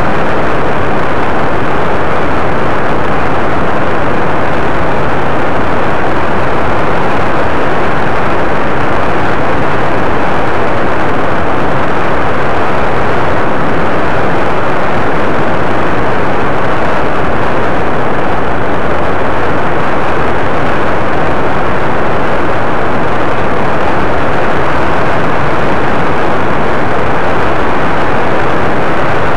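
Paramotor engine and propeller running steadily in flight, a loud, unbroken drone mixed with wind rush on the microphone.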